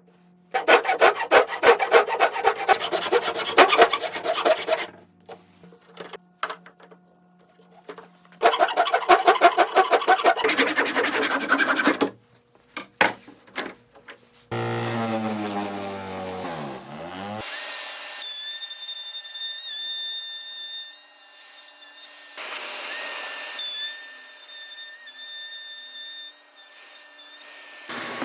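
Fast rubbing strokes on wood in two spells, a few scattered knocks between them, then a power tool running with a steady whine.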